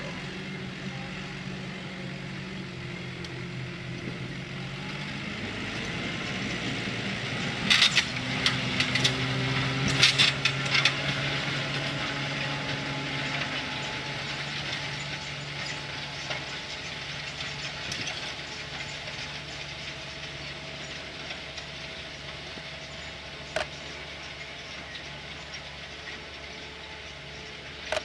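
Case Puma tractor's diesel engine running steadily while pulling a reversible plough, with a burst of metallic clanks and rattles about eight to eleven seconds in and a single sharp knock near the end.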